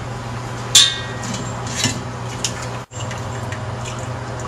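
Metal strainer and cookware clinking against a pot while soup is strained: one sharp clink about a second in, then a few lighter clinks and taps, over a steady low hum.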